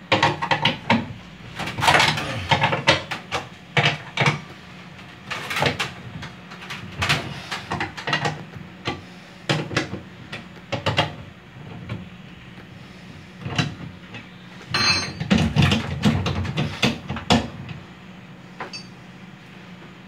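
Irregular metallic clicks and clanks of a hand wrench on the motor's mounting bolts and steel bracket of a washing machine, as the motor is loosened to slacken the drive belt. The clicking comes in clusters, busiest at the start and again about three quarters of the way through.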